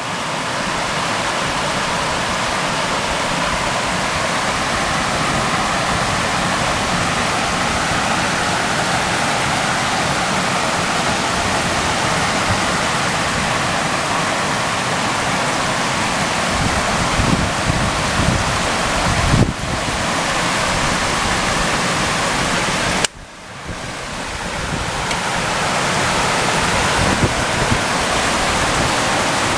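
Rushing flash-flood water, a steady loud rush. A few low thumps come about two-thirds of the way through, and soon after the sound drops suddenly for a moment before building back up.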